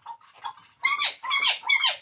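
Dog whining: three short high-pitched whimpers, each bending up and down, in the second half.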